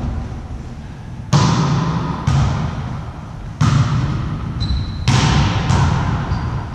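A volleyball rally: about five sharp slaps of hands on the ball, spaced roughly a second apart, each echoing in a large sports hall.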